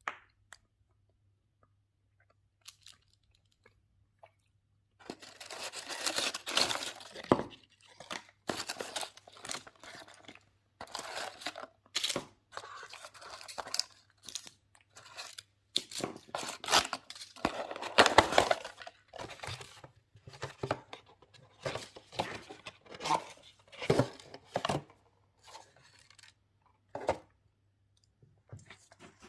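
Packaging of a box of Elit truffle chocolates being torn open and handled by hand. After a quiet start with a few small clicks, irregular tearing and crinkling begins about five seconds in and comes in bursts with short pauses.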